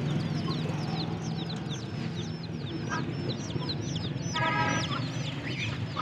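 A cage full of baby chicks peeping nonstop: many short, high, falling peeps overlapping one another.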